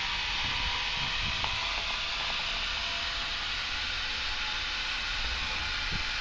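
Small electric fan running: a steady hiss of moving air with a faint hum.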